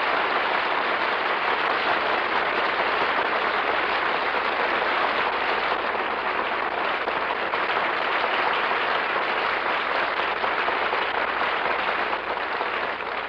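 Studio audience applauding steadily at the end of an act, dying away near the end.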